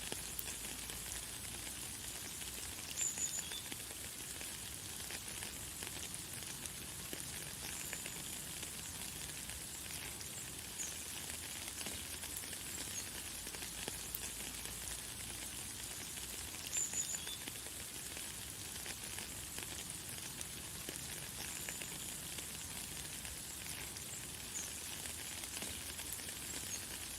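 Light, fine rain falling as a steady hiss of many small drops. Brief high bird chirps come through it now and then, the clearest about 3 and 17 seconds in.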